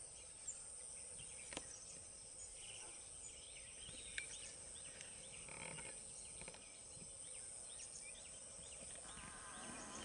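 Wild forest ambience at a low level. A steady high-pitched insect drone runs under scattered short bird chirps, with a few sharp faint clicks.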